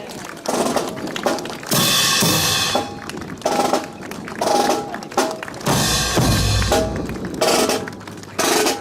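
Band music dominated by snare and bass drum beats, coming in loud phrases with short breaks between them.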